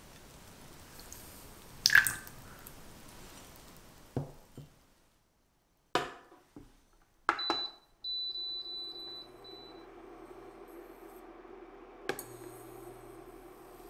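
A stainless steel saucepan clinks and clanks as it is handled and set down on an induction cooktop. The cooktop gives a high, slightly pulsing beep for about two seconds as it is switched on, then runs with a steady electrical hum, heating a sugar-and-water syrup for caramel.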